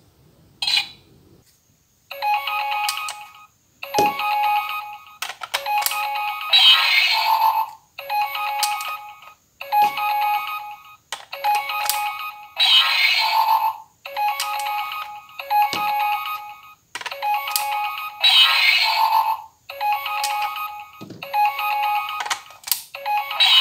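Auldey DX Rescue Driver toy transformation device playing a looping electronic ringtone-like jingle through its small speaker, the phrase repeating about every six seconds, with a few short plastic clicks from its buttons and medals as it is worked.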